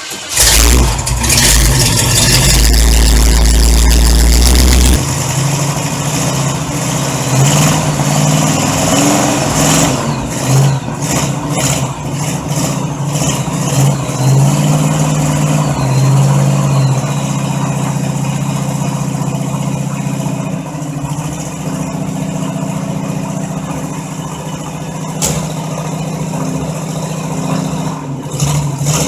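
A 1964 Chevrolet Impala's engine catches and fires up right at the start after sitting unrun for a while, running very loud with a heavy rumble for the first few seconds. It is then revved up and down several times before settling to a steadier idle in the second half.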